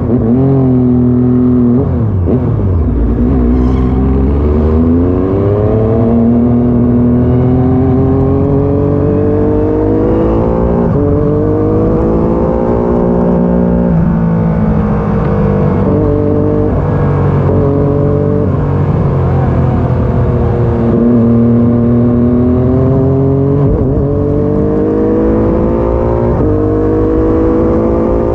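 Triumph Daytona 675's inline three-cylinder engine, heard from on board the bike while it is ridden hard. The pitch climbs through each gear with quick drops at the upshifts and slower falls as it slows for corners, over and over.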